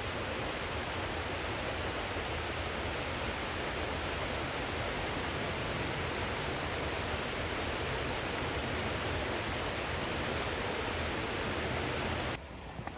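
Steady rushing of water from a waterfall in full flow. It drops away suddenly near the end, followed by a single brief knock.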